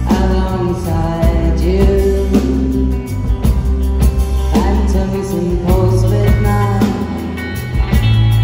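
Live rock band playing: a singer's voice over electric guitars, bass, keyboard and drums.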